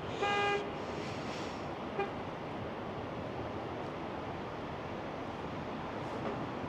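A brief car horn toot right at the start, then a steady hiss of distant traffic and wind, with a faint tap about two seconds in.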